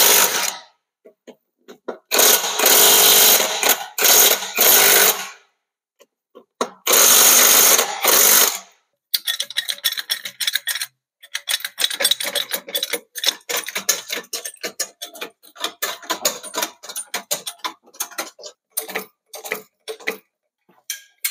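Cordless impact wrench hammering in several bursts of one to two seconds each, undoing a car's wheel nuts. Then a hydraulic floor jack being pumped to lift the car: a long run of irregular clicks and knocks.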